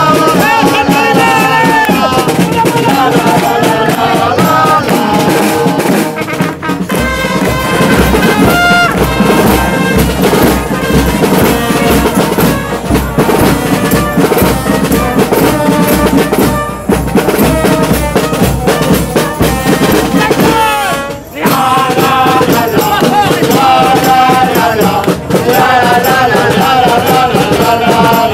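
Music with a wavering melody over a pulsing beat, dipping briefly about 21 seconds in.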